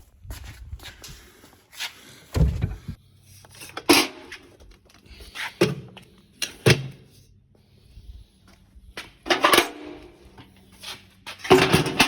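Tools being set down and shifted around in a rolling tool cart as it is loaded: a series of clunks and clatters, about six louder knocks among quieter handling sounds.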